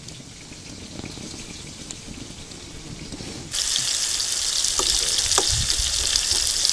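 Fish frying in oil in a pan: a loud, steady sizzling hiss that starts suddenly about halfway through. Before it only a faint low background rumble is heard.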